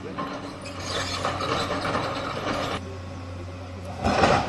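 Excavator working: its diesel engine runs at a steady hum under a mechanical rattling and scraping, with a louder clatter just before the end.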